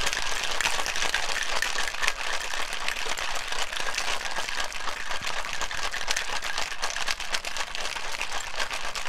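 Ice cubes rattling inside a sealed cocktail shaker as it is shaken vigorously, a fast, steady, continuous rattle.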